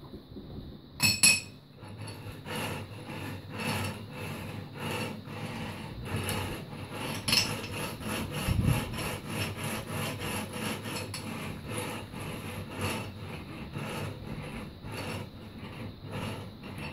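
Glass tube rolling back and forth on the steel wheels of a stainless-steel bench roller stand, turned by hand, making a rubbing, rolling noise in quick, even strokes. A sharp clack about a second in.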